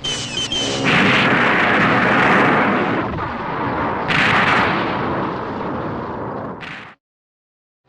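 Tokusatsu kaiju-battle explosion sound effect: a long rumbling blast with fresh bursts about a second in and again about four seconds in. It fades and then cuts off to dead silence for the last second.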